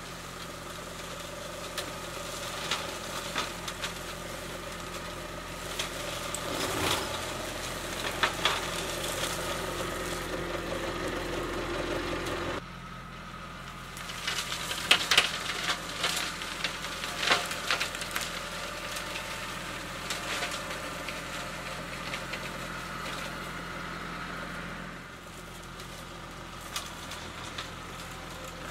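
Kubota B2261 compact tractor's three-cylinder diesel running steadily while its front PTO flail mower shreds brush and undergrowth, with many sharp cracks and snaps of branches and debris striking the flails. The sound changes abruptly about twelve seconds in and again near the end.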